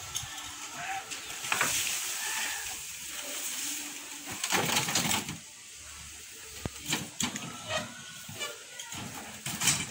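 Wheelbarrow being wheeled and tipped, its load of dirt sliding out onto a heap with a rush of noise about halfway through, among scattered knocks and rattles from the barrow.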